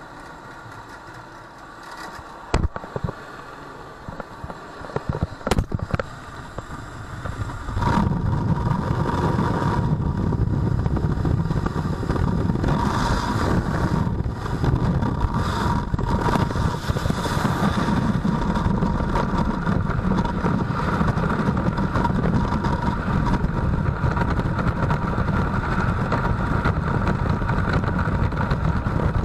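Muffled drone inside a Cessna Caravan's cabin, with a few knocks and clatters. About eight seconds in it jumps to a loud, steady rush of wind and engine noise on the helmet camera's microphone, which carries on through the climb-out and into freefall.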